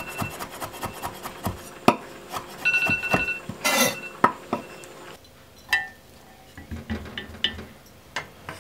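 Kitchen utensils knocking and clinking against pans and dishes, with a short ringing note about three seconds in and a brief rush of noise around four seconds. The knocks thin out to a few faint clicks in the second half.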